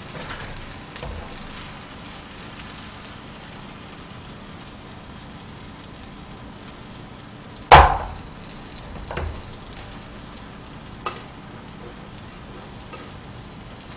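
Pajeon (Korean scallion pancake) frying in a pan, with a steady sizzle. About eight seconds in there is a loud sharp knock as the pan and a metal turner are handled, followed by two fainter knocks.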